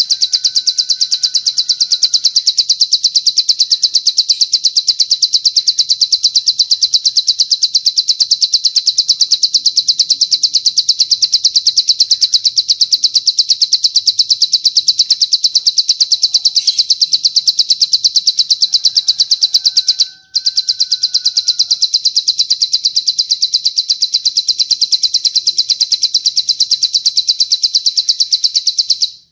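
Cililin bird song: a long, unbroken, very fast high-pitched trill of evenly repeated notes, breaking off only briefly about twenty seconds in. A faint lower whistle slides slightly down twice, near the start and around the break.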